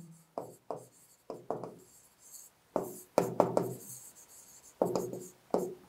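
Stylus writing on a touchscreen board: an irregular run of short taps and scraping strokes against the panel.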